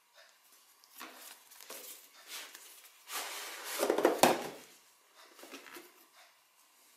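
Phone packaging being handled during an unboxing: light rustles and scrapes of cardboard and plastic, with a louder scraping slide about three seconds in that ends in a sharp click.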